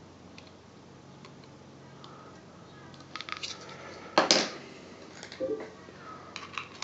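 Small metal parts of a Kayfun V4 rebuildable atomizer handled on a table: a few light clicks, then a sharp clack just after four seconds as a part is set down, and more faint clicks near the end. A faint steady hum sits underneath.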